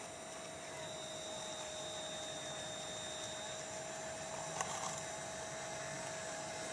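Steady electric whine of a 1/12-scale RC Liebherr 636 track loader's small drive motors and gearing as it tracks slowly forward, with one short click a little past halfway.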